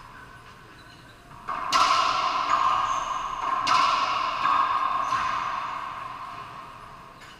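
Racquetball rally: sharp cracks of the ball struck and hitting the walls, about two seconds in and again about four seconds in, with a lighter hit near five seconds. Each crack rings on in the enclosed court and the sound fades out near the end.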